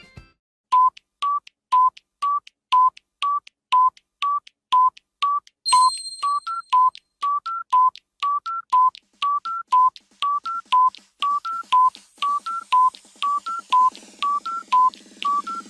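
Countdown timer sound effect: short electronic beeps about two a second, alternating between two close pitches like a tick-tock, with a higher third beep joining the pattern in the second half. A brief bright chime sounds about six seconds in, and a faint low pulsing builds underneath over the last few seconds.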